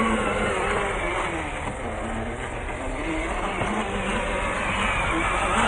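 MJX Hyper Go H12Y RC truck's electric motor running under varying throttle, its whine rising and falling in pitch over a steady noisy background.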